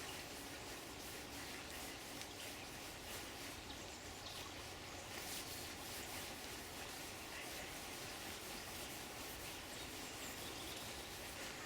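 Water flowing and trickling steadily, with faint bird calls.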